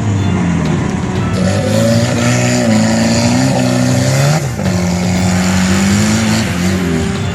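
An off-road 4x4's engine revving under hard throttle, its pitch rising and falling as the driver works the accelerator, with a brief drop about four and a half seconds in.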